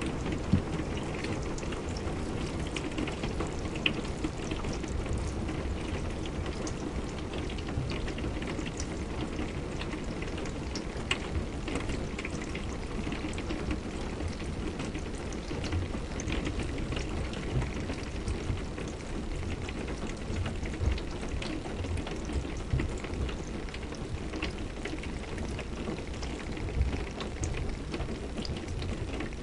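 Steady rain, a dense rush with a deep low rumble, sprinkled with short sharp ticks of single drops.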